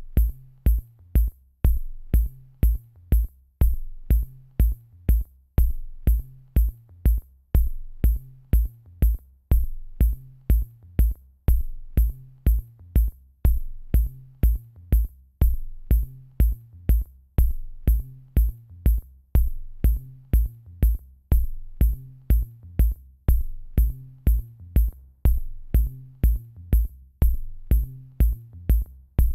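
Electronic background music with a steady drum-machine beat over a low bass line.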